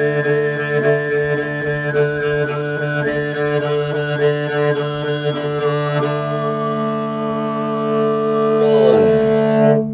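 Mongolian throat singing (khoomei): a steady low drone with a whistling overtone melody moving above it, accompanied by a bowed morin khuur (horse-head fiddle). Near the end the pitch slides downward and the sound stops abruptly.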